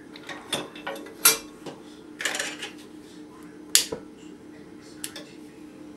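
Metal clinks and taps from handling an Optimus 111 paraffin stove's sheet-metal case and burner parts: a sharp clink about a second in, a short rattle around two seconds, another sharp clink near four seconds, and lighter taps after.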